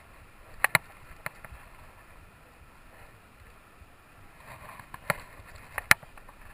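A handful of sharp clicks and knocks over faint steady background noise.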